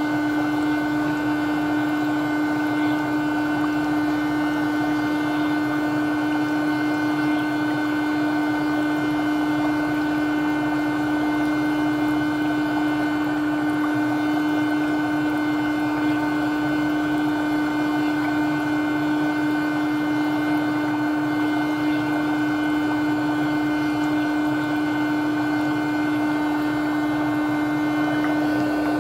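Electric foot spa running: a steady motor hum over water bubbling in the tub, with no change throughout.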